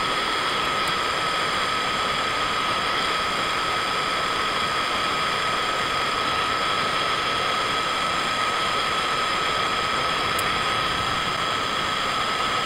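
Gas torch burning with a steady loud flame noise and a constant high tone running through it, as it heats steel plier jaws to an orange glow for annealing.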